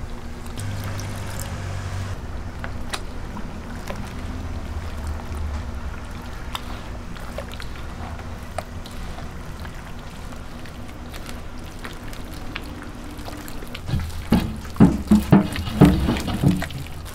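Gloved hands mixing pork pieces into a thick starch-and-egg batter in a stainless steel bowl: water trickling in as it is poured, then wet squishing and clicking as the batter is worked. Near the end come a quick run of loud wet squelches as the hands knead the thickened batter. A steady low hum runs underneath.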